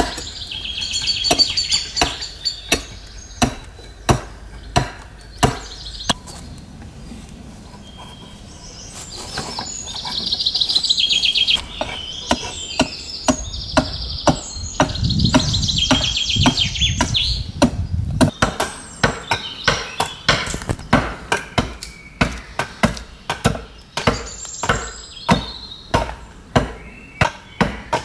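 Flat carpenter's adze chopping into a wooden board, a sharp blow about once or twice a second, with a short pause about six seconds in. Birds sing in the background.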